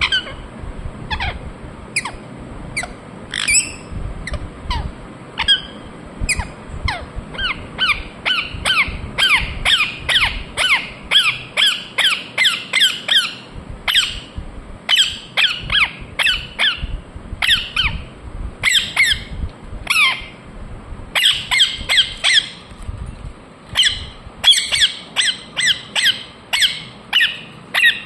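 Ringneck parrot calling over and over: short, sharp chirps that each drop in pitch, coming in quick runs of about four a second with brief pauses between runs.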